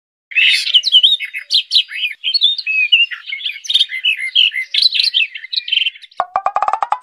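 Birds chirping and twittering in a busy run of quick, varied calls. Near the end they give way to a short, rapid rattle over a slowly rising tone.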